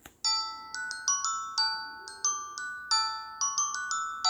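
A melody of struck, bell-like mallet notes, about three a second, each note and chord ringing out and fading.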